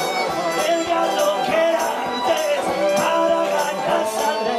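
Live punk-blues band playing: a banjo strummed under male voices singing.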